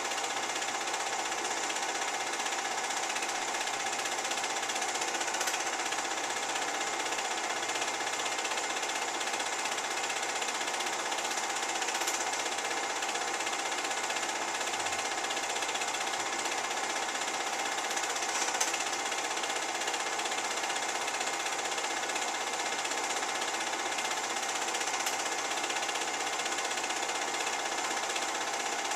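Home-movie film projector running: the steady, even clatter of its film-advance mechanism.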